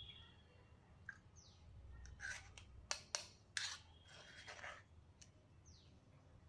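Metal spoon scraping and clinking in a metal strainer of blended pomegranate pulp, pressing the juice through. There are soft scrapes, then a few sharp clicks about halfway through.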